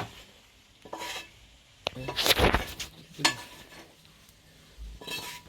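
Kitchen utensils and pots being handled: a few separate scrapes and knocks, the loudest a longer scrape about two seconds in.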